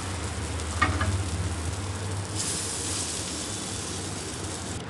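Sprouts tikka patties sizzling as they fry on a hot, greased tawa griddle, with a short tap about a second in.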